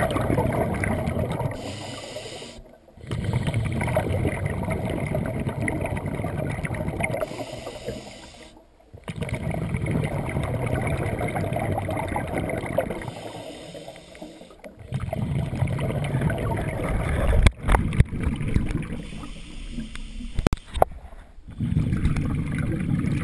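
Scuba diver breathing through a regulator underwater: long rumbling rushes of exhaled bubbles, each lasting several seconds, broken by short quieter pauses for the inhale. A few sharp knocks sound near the end.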